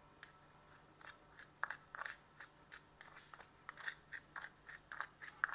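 Metal spoon scraping and tapping seasoning out of a small dish into ground pork: a string of faint, short scrapes and clicks, a few a second.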